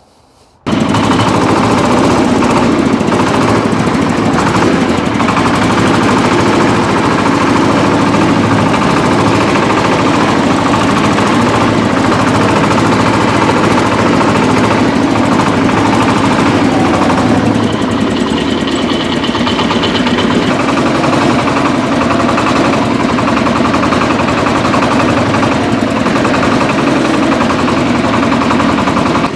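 Shifeng-240 mini tractor's single-cylinder diesel engine running loud and steady with a rapid knocking beat, starting abruptly about half a second in.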